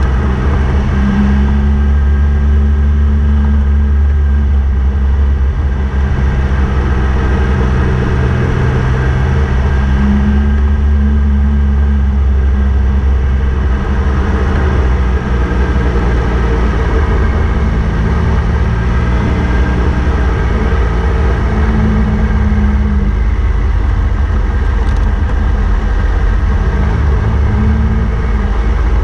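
Triumph Tiger 1200's three-cylinder engine running steadily at low speed on a gravel road, its pitch rising and falling a little with the throttle.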